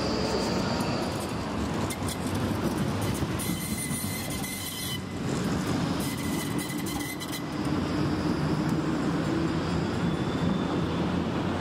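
City trams rolling past close by, a steady rumble of wheels on rails and traction running gear, with a thin high steady whine through the middle.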